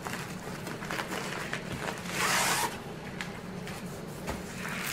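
Padded mailer envelope and plastic packaging rustling as a rolled canvas is pulled out, with one louder rasping rustle lasting about half a second around two seconds in.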